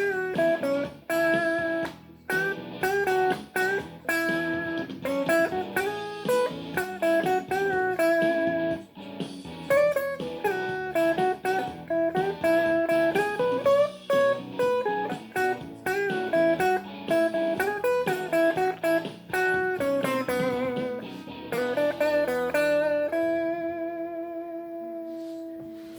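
Blues guitar playing a picked melodic line of single notes and short phrases, ending about three seconds before the end on a held chord that rings out and slowly fades.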